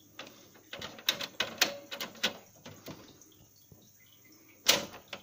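Sharp plastic clicks and taps as the pick-up roller and its green plastic stopper are pushed and snapped into place inside a Canon MF5940 printer, followed near the end by one louder knock.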